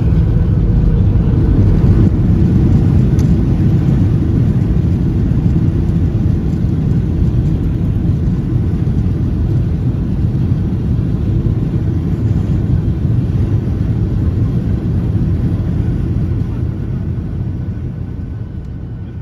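Steady low rumble of a passenger jet heard from inside the cabin: engine and airflow noise. It dies away gradually over the last few seconds.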